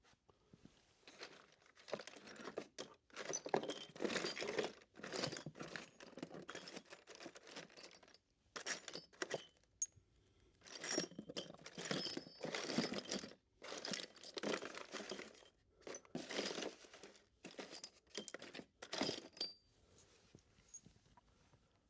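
Small metal screws and hardware rattling and clinking as a hand rummages through them, in irregular bursts with short pauses.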